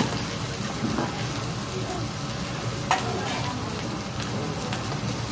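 Food sizzling on a hot griddle, with a few light taps and one sharp clack about three seconds in.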